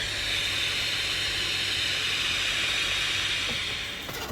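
A steady, high-pitched hiss that fades out near the end.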